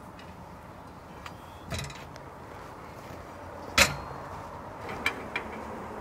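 Steel firebox door of a wood-fired smoker being swung shut and latched: a softer clatter near two seconds in, one loud metal clank a little before four seconds, then two light clicks.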